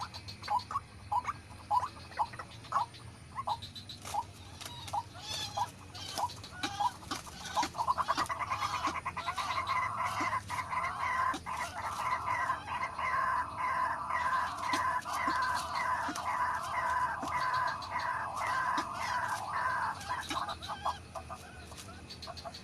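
White-breasted waterhen (ruak-ruak) calling: a series of short repeated notes at about two a second, swelling about eight seconds in into a louder, dense run of repeated calls that ends shortly before the close.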